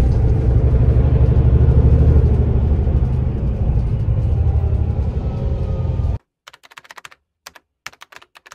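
Loud, steady rumble of a moving bus heard from inside the cabin at the rear seats. It cuts off suddenly about six seconds in, followed by two quick runs of keyboard-typing clicks.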